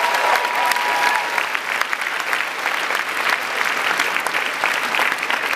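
Audience applauding steadily, a dense patter of many hands clapping. A thin steady tone, like a whistle, sounds over it for about the first second and a half.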